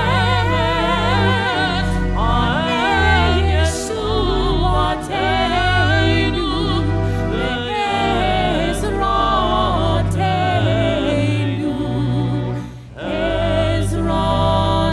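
Liturgical music: a singer with wide vibrato over an accompaniment of sustained low notes, with a short break about thirteen seconds in.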